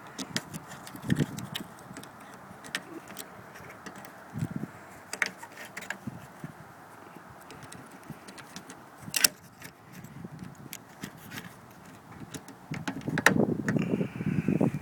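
Light clicks, knocks and rattles of small plastic clips, fasteners and tools being handled while refitting a car's grille. There is one sharp click about nine seconds in, and the handling gets busier near the end.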